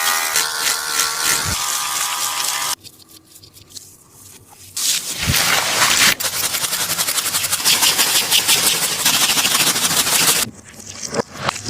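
A taba squishy, a handmade paper-and-tape squishy, being squeezed and handled: a squeaky rubbing sound at first, then a pause, then about five seconds of dense crinkling of the paper and tape.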